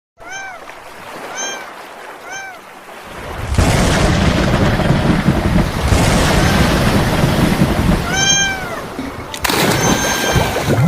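A cat meowing: three short meows in quick succession, each rising and falling in pitch. About three and a half seconds in, a loud rushing noise starts, and a longer meow sounds over it about eight seconds in.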